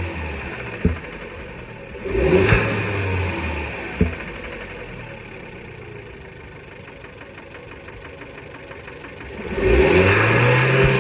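Fiat Bravo 1.4 T-Jet turbocharged four-cylinder engine idling and revved twice, once about two seconds in and again near the end. A single sharp knock sounds as the revs drop back, about a second in and again at four seconds: the knocking noise this high-mileage engine still makes after maintenance.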